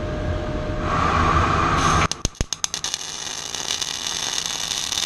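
Steady hum of a running EWM Mira transformer MIG/MAG welder. About two seconds in, the arc strikes with a stuttering run of sharp cracks, then settles into the continuous crackle of short-arc MAG welding on 8 mm steel. The rough, spattery ignition is typical of a step-switched transformer machine in short-arc mode.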